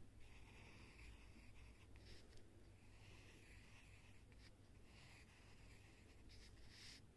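Faint scratching of a pencil drawing curls on paper, in several short strokes.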